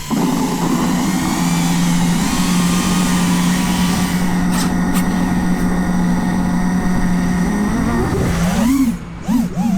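5-inch FPV quadcopter's T-motor Velox 2400 kV motors and propellers spinning up suddenly and loudly at takeoff, then holding a steady buzzing hum. From about eight seconds in the pitch swoops up and down quickly as the throttle is punched and chopped in freestyle flying.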